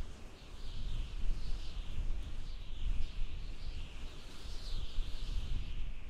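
Strong mountain wind blowing in gusts: a low rumble that swells and fades every second or so, over a higher hiss that rises and falls.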